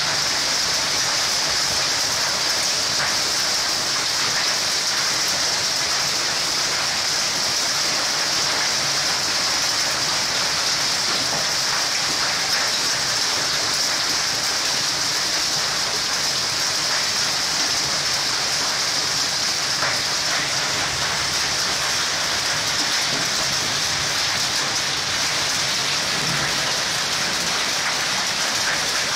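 Heavy rain mixed with hail pelting the ground, puddles and plants: a steady, dense hiss with scattered faint ticks of individual stones.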